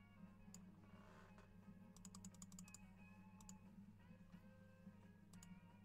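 Near silence: faint background music over a low electrical hum, with a quick run of light clicks about two seconds in.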